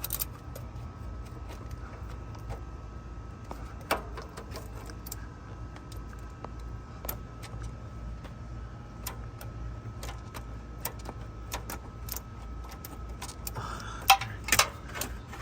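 Scattered light metallic clicks and ticks, with a sharper click about four seconds in and a quick cluster of louder clicks near the end, as a loosened oil filter is turned off by hand under a car. A steady low hum runs underneath.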